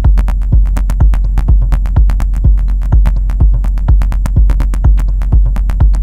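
Live techno pattern from a Korg Volca Sample sample-based drum machine. A kick drum lands about twice a second over a sustained deep bass, with crisp hi-hat-like clicks between the kicks.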